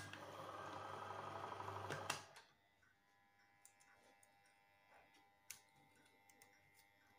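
LOMO Rus 8mm/Super 8 film projector switched on with a click, its motor and film mechanism running with a fast, even clatter and a low hum for about two seconds, then switched off with a click. After that, only faint clicks of handling at the projector.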